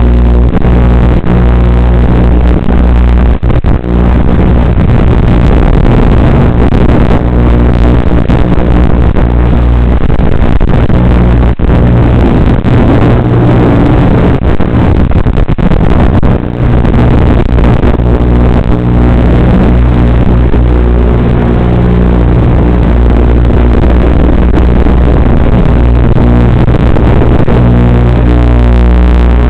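Racing quadcopter's electric motors and propellers buzzing through a long flight, the pitch shifting with the throttle, with a few brief dropouts.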